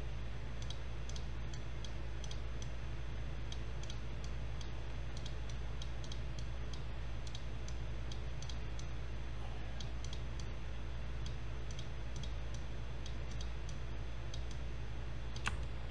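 Computer mouse clicking, faint and irregular, over a steady low hum, with one sharper click near the end.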